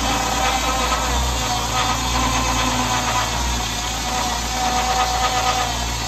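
Oliver 77 tractor engine running steadily as it belt-drives a sawmill's large circular saw. The engine's low pulse swells and eases every second or two under a steady high whine from the spinning blade and belt.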